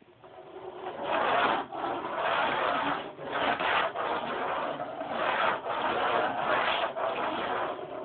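Rough rubbing or rasping strokes, repeated one after another about once or twice a second.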